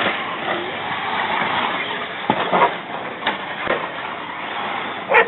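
Remote-control cars running on a dirt track: a steady whir of motors and tyres with a few short knocks. A dog barks once right at the end.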